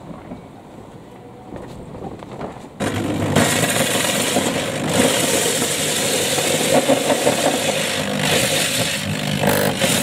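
Corded power drill with a 95 mm hole saw starting up about three seconds in and cutting into the boat's laminate deck, a loud, steady rasping whir that carries on.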